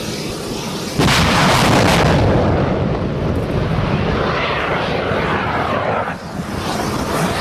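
Anti-ship missile fired from a truck-mounted coastal launcher: a sudden blast about a second in as it leaves the tube, then the rocket motor's loud, steady rushing roar as it climbs away.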